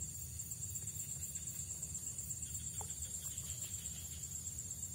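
Steady high-pitched insect chorus, a pulsing buzz, over a low rumble, with one faint short chirp near the middle.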